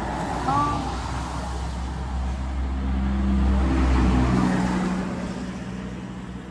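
A motor vehicle passing on the road: engine and tyre noise swelling to its loudest about four seconds in, then fading away.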